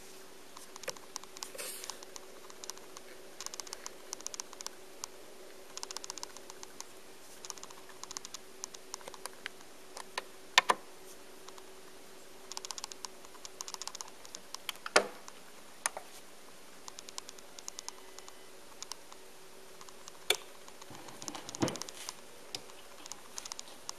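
Technics SL-5 linear-tracking turntable running: faint irregular clusters of fine ticking over a steady low hum, with a few sharp knocks and a duller thump near the end.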